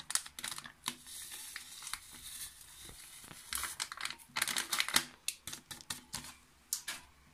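A packet of dry köfte seasoning mix crinkling and crackling in the hand as its crumbly contents are shaken out into a plastic mixing bowl, in irregular crackles with a soft hiss of the mix pouring. It dies away shortly before the end.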